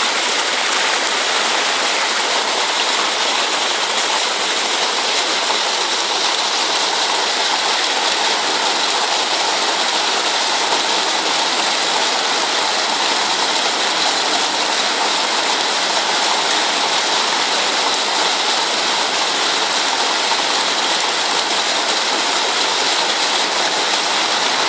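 Fast-flowing floodwater rushing along a street, a steady loud rush of churning water.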